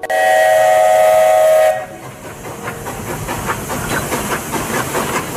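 A steam train whistle blows for a little under two seconds and cuts off. It is followed by the steady rhythmic chugging of a steam locomotive.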